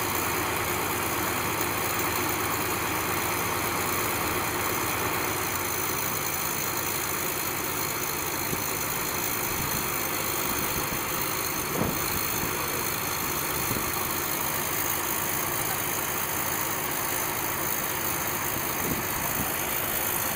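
Diesel engine of a Kirovets articulated tractor idling steadily while the tractor sits stuck in deep snow. A single brief knock sounds about halfway through.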